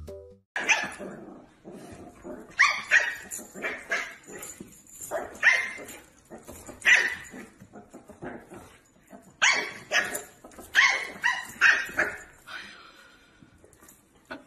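A dog barking: about a dozen short, sharp barks in irregular clusters.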